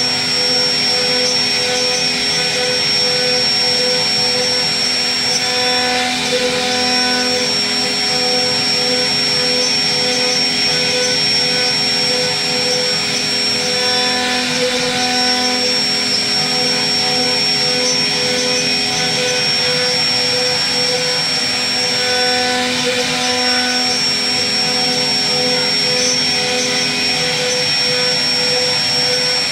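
CNC router spindle running steadily with a high whine while its carving bit cuts into a wooden door panel.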